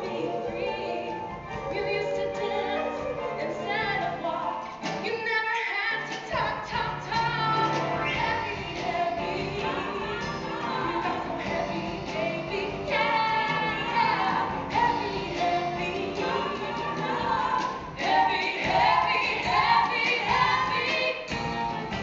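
Three women singing a stage-musical number with live orchestra accompaniment.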